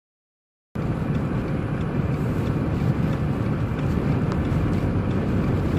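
Steady road and wind noise of a car driving through a blizzard, cutting in abruptly a little under a second in.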